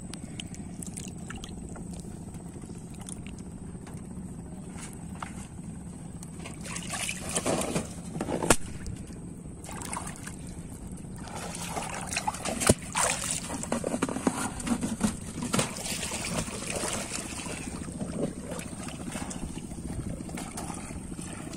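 Water sloshing and splashing in irregular bursts as a person wades waist-deep through shallow water and handles a plastic bucket, with a couple of sharp knocks among them. A low steady hum runs underneath.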